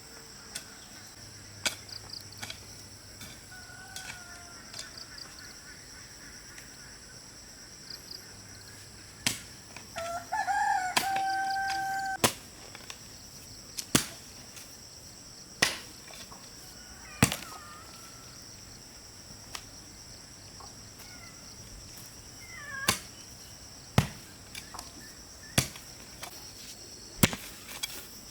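A rooster crows once about ten seconds in, after a fainter crow earlier. Throughout, sharp chopping strikes come irregularly every second or two over a steady high insect drone.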